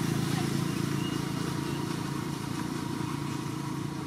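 Steady low engine drone that holds one pitch.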